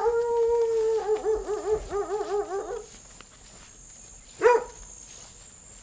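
A dog howling: one long held note that breaks into a quick, regular wavering for about two seconds more. About four and a half seconds in, it gives a single short yelp.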